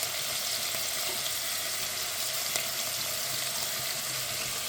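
Chopped tomato, onion, thyme and carrot sizzling in a little olive oil in a pot, a steady crackling hiss with a few faint clicks.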